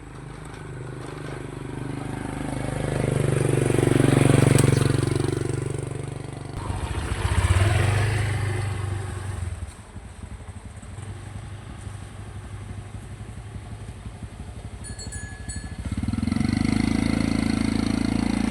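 Engine-driven vehicles passing one after another. The engine sound swells to a peak about four and a half seconds in and falls in pitch as it goes by. A second pass peaks a few seconds later, and another engine builds up near the end.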